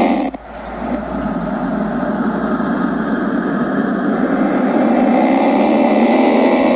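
Sauropod dinosaur call sound effect: one long, steady, noisy call that swells in over about a second near the start and holds until it cuts off near the end.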